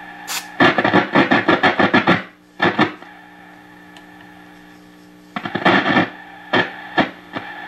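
Philco 38-62 tube radio's speaker as the dial is tuned: a broadcast station comes in loud for a second or so, drops to a steady hum and hiss between stations, comes back briefly, then gives a couple of sharp clicks. The noise marks a dirty spot on the tuning capacitor that still needs cleaning.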